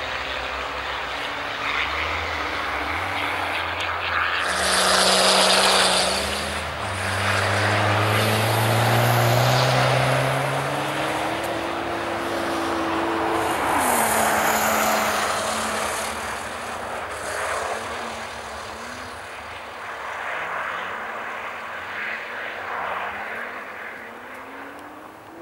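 Car engine revving on snow-covered ice, its pitch climbing and dropping repeatedly as the car slides, with waves of loud rushing hiss from the tyres and thrown-up snow, loudest about five seconds in.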